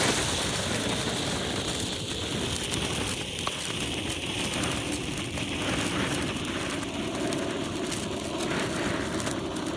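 A 1970s Horse Brand Conic mini cone fountain firework spraying sparks: a steady hiss with faint crackling, fading slightly near the end.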